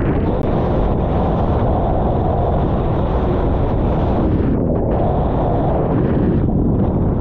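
Wind buffeting the onboard camera's microphone over the rush of water past the hull of a Formula 18 catamaran sailing at speed: a loud, steady roar that is heaviest in the low end.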